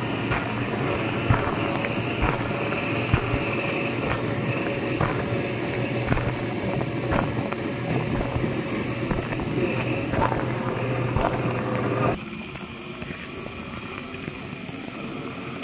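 Electric motor and gear whine of a 1/10-scale RC crawler truck driving over loose gravel, with stones clicking and crunching under the tyres. About twelve seconds in the steady whine drops away suddenly, leaving quieter gravel noise.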